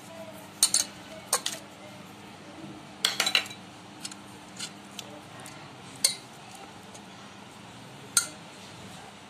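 A steel bowl and spoon clinking against a pressure cooker as raw mutton pieces are tipped and spooned in. About a dozen sharp metallic clinks come at irregular spacing, with a quick cluster about three seconds in.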